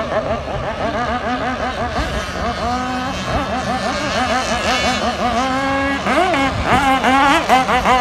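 Engines of several radio-controlled racing boats running at full throttle together, a high buzz that wavers up and down in pitch as the boats speed up and slow through the turns, louder from about three-quarters of the way in.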